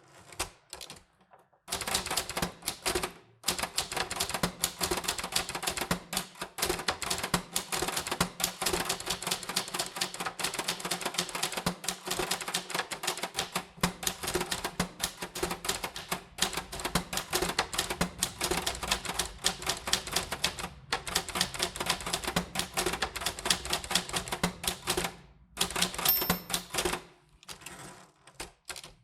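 Typewriter keys striking in rapid, continuous runs of clacking, broken by a few short pauses, with a brief high ring near the end.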